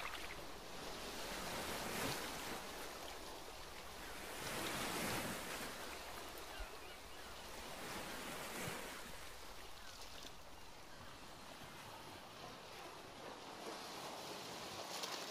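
Ocean surf: a soft, steady wash of waves that swells and falls every few seconds.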